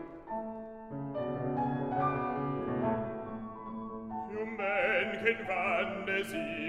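Piano accompaniment to an operatic aria, playing alone at first. About four seconds in, a baritone voice comes back in, singing with a wide vibrato.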